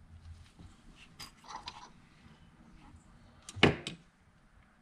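Metal transmission parts handled on a workbench: a few light clinks about a second and a half in, then one sharp knock, the loudest sound, about three and a half seconds in.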